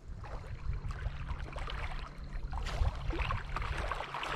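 Wind buffeting the microphone with a steady low rumble, over small waves splashing and lapping against a rocky lakeshore. It begins abruptly.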